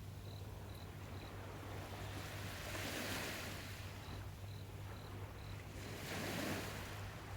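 Sea waves washing onto the shore, each swell rising and falling about every three and a half seconds. Twice a short run of high, evenly spaced chirps, about two a second, sounds over them, like an insect calling, and a steady low hum runs underneath.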